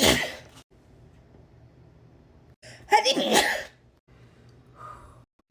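A woman sneezing loudly twice: one sneeze right at the start and another about three seconds in.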